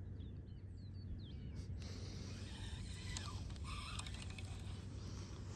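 Quiet outdoor ambience by a pond: a steady low hum, with a few faint bird chirps in the first second and some light clicks.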